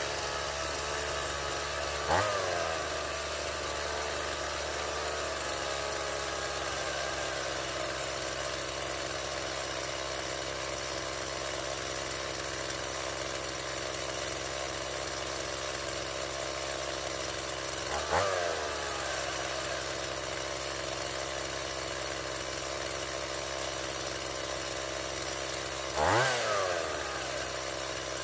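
Stihl MS 170 chainsaw's small two-stroke engine idling steadily, blipped up briefly three times, with the pitch rising and falling back each time.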